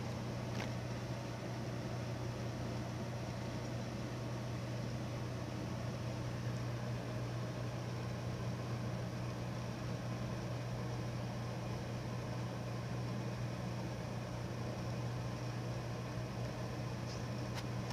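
An engine running steadily with an even low drone, like a crane's diesel at constant speed. A faint short high squeak sounds near the start and again near the end.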